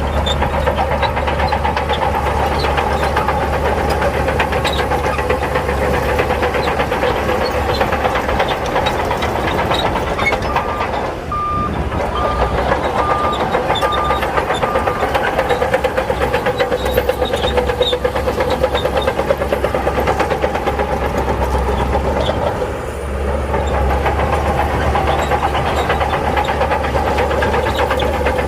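Heavy diesel engine of earthmoving machinery running steadily under work. Near the middle, a reversing alarm sounds a string of about six short high beeps, and the engine note dips briefly twice.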